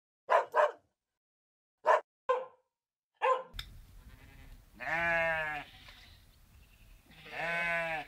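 Siberian husky giving five short barks in quick pairs. Then a sheep bleats twice, two long wavering bleats a couple of seconds apart, over a faint steady outdoor background.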